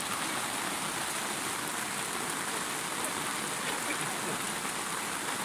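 Heavy storm rain falling steadily, with a stream of runoff pouring off the edge of an awning and splashing onto the ground.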